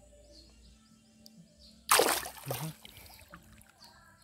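One loud splash in shallow, muddy pond water about halfway through, dying away within about half a second.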